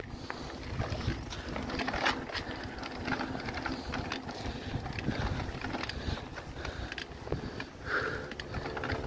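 Mountain bike riding over a rough dirt forest path: tyres crunching and the frame rattling with irregular knocks as it bumps along.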